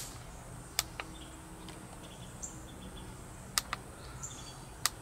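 A few sharp plastic clicks from the push-button switch of a rechargeable portable fan's LED light, pressed to turn the light on and step it through its brightness levels; two of the clicks come close together about three and a half seconds in, and another comes near the end.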